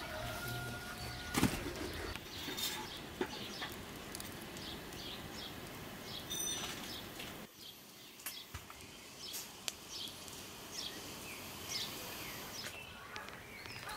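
A wood fire crackling under a large pan of boiling mulberry syrup, with small birds chirping around it. There is a single sharp knock about a second and a half in.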